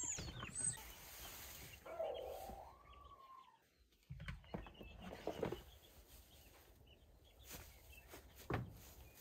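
Baby chicks peeping at the start and a chicken giving a drawn-out call about two seconds in, then scattered knocks and bumps of a plastic storage tote being set down on straw in a chicken coop and its lid lifted off.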